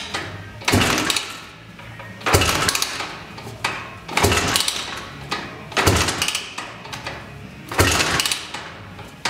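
Rotax-Honda ATC250R hybrid two-stroke engine being kick-started: five hard kicks, about one every one and a half to two seconds, each turning the engine over briefly without it starting.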